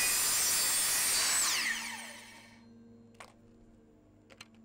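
Compound miter saw cutting a vinyl post-wrap panel, running at full speed, then switched off about a second and a half in and winding down with a falling whine. A few light clicks near the end.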